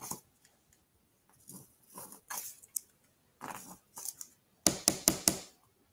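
Squeeze bottle of craft glue sputtering as it is squeezed along the slots of MDF pieces, in several short splutters and ending with a quick run of sharp pops.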